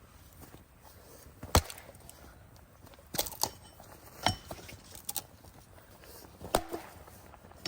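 Firewood being chopped by hand: several sharp wooden knocks at irregular intervals, the loudest about a second and a half in.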